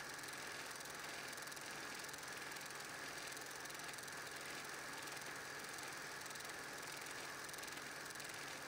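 8mm film projector running: a steady mechanical whirr with a fast, even clatter over a low hum and hiss.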